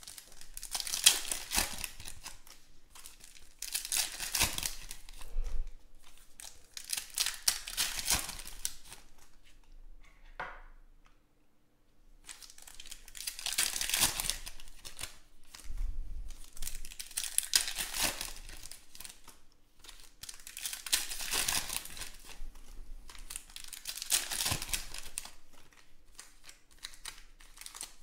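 Foil trading-card pack wrappers being torn open and crinkled by hand, in repeated rustling bursts every few seconds, with a short pause about halfway through.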